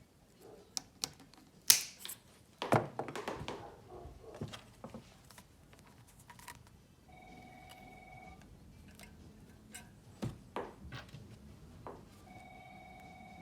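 Clicks and knocks of hands working small metal parts: Rohloff hub shift cables and their fittings being handled with tools. The two loudest knocks come about two and three seconds in. A steady tone sounds twice in the second half.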